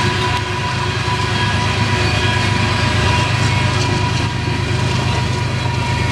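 Union Pacific AC45CCTE (GE ES44AC) diesel-electric locomotive pushing at the rear of a loaded coal train as it passes. A steady low engine drone and a steady high whine sit over the rolling rumble of the train's wheels on the rails.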